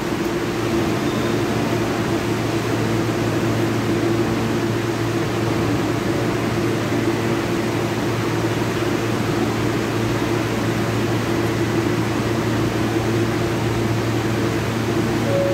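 Steady hum and rushing noise inside an R160B Siemens subway car, with a constant low hum under an even wash of noise.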